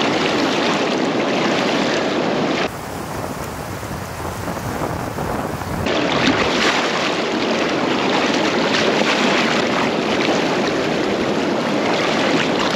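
Fast river rapids rushing and splashing close to the microphone, a loud, steady noise of moving water. It drops somewhat and changes in texture for about three seconds partway through, then comes back as loud.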